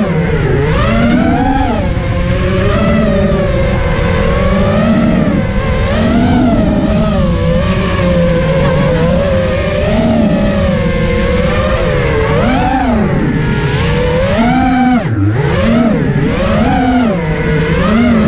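FPV racing quadcopter's motors whining in flight, heard from the camera on board. The pitch keeps rising and falling with the throttle, and about three seconds before the end it drops sharply for a moment and climbs again.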